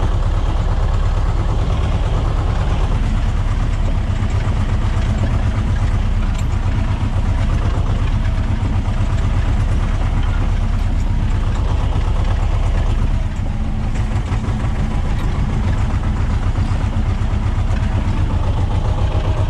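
Tractor engine running steadily as it pulls a potato ridger through the rows, heard from inside the cab.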